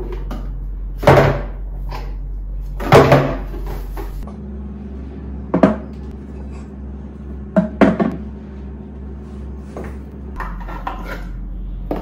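Plastic toiletry bottles and small ornaments being picked up and set down on tiled bathroom shelves: a handful of separate knocks and clunks, the loudest two in the first three seconds, over a low steady hum.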